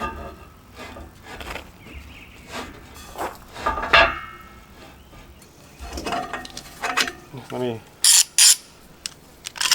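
Scattered knocks and metallic clinks, with one ringing clink about four seconds in, as railing parts and clamps are handled and set in place, then two short, loud scraping rasps near the end.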